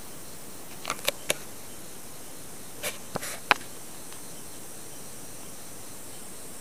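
Steady hiss of recording noise, with a few short sharp clicks in two small clusters, about a second in and again about three seconds in.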